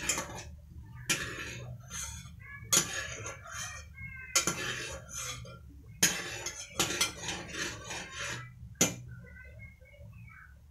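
A metal utensil clinking and scraping against a pot of hot water, in sharp knocks every second or two, as a block of butter is prodded in it.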